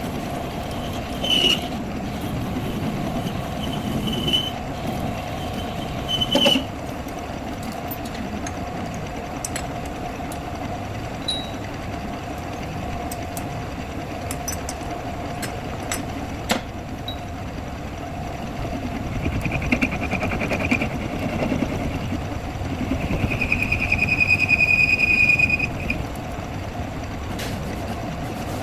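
Workshop noise during a truck axle repair: a steady machine hum, scattered sharp metal clicks and knocks, and a high-pitched whine twice near the end, the second longer and the loudest part.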